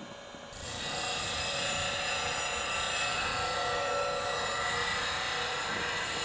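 Bench grinder fitted with CBN wheels switched on about half a second in, spinning up over a moment and then running steadily with a smooth motor whine.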